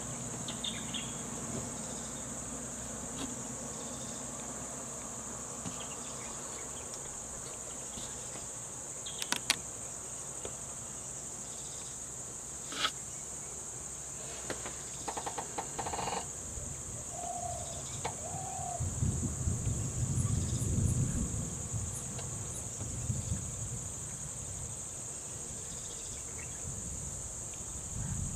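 Insects droning steadily at a high pitch, with a few sharp clicks and a low rumble for a few seconds about two-thirds of the way through.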